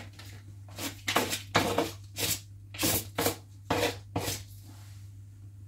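A table knife scraping butter off its wrapper into a saucepan: about six short scrapes at uneven intervals, over a steady low hum.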